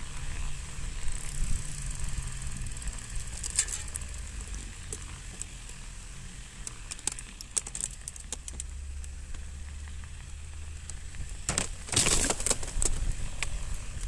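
Mountain bike being ridden over snow, heard through a camera mounted on the bike: a steady low rumble with scattered clicks and rattles from the bike. A louder run of rattling comes about twelve seconds in.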